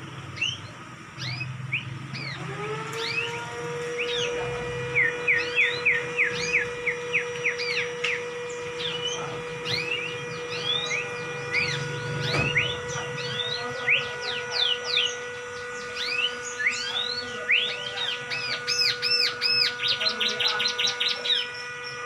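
Caged songbird chirping and whistling: many quick rising and falling notes, with a fast trill of repeated notes near the end. A steady low tone comes in a few seconds in and holds underneath.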